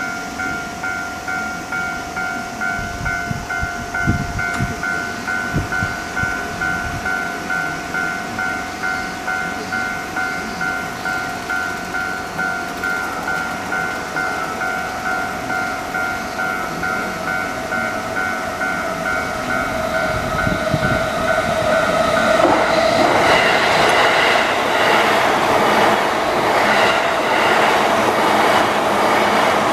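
Japanese level-crossing warning bell in the old JR standard tone, ringing in a steady repeating electronic ding pattern. About 22 seconds in, a train runs through the crossing, and its rail and wheel noise builds and largely covers the bells.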